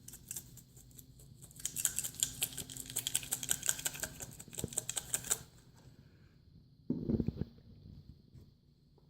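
Slime being squished and pulled by hand: a rapid run of crackling clicks, thickest in the middle, that stops about five seconds in, followed by a single low thud about seven seconds in.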